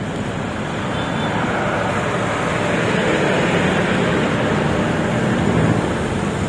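Road traffic: a motor vehicle's engine and tire noise swelling as it passes close by, then easing off.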